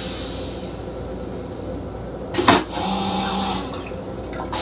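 Railcar restroom toilet flushing: a short, loud rush as the bowl empties about halfway through, followed by a brief steady hum, over the steady rumble of the train.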